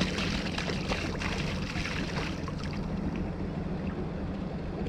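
Water pouring out of an upturned plastic bottle and splashing into the sea, stopping about halfway through, over a steady low drone.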